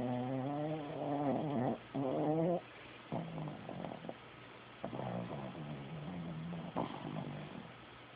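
A sleeping dog snoring, each breath drawn out into a pitched, wavering snore, several in a row with short gaps. The first snores are the loudest.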